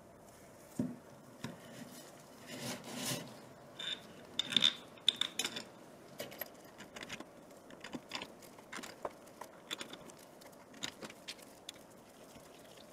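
Close handling of a small 3D-printed compressor block in gloved hands: rubbing and scraping against the plastic housing, with a few ringing metallic clinks from the steel cylinder sleeves between about four and five and a half seconds in. Light clicks and ticks follow as a screw is worked with a small hex key.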